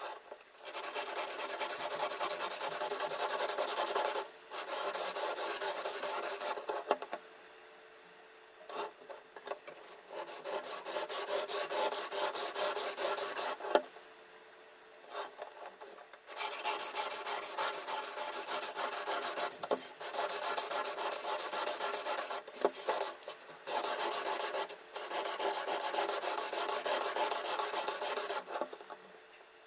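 Steel knife blade rubbing back and forth on a sharpening stone in a fixed-angle sharpener: long runs of quick rasping strokes, broken by pauses of a second or two. The strokes come fast because the footage is sped up three times.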